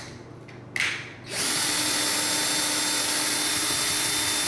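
Cordless drill driving a screw into the ceiling to fasten a light fixture's mounting bracket: a short burst about a second in, then running steadily from about a second and a half in.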